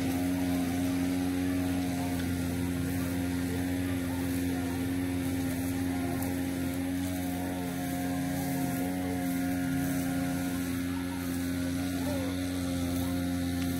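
A steady mechanical hum from a machine running at a constant speed, made of several held tones with no change in pitch or level.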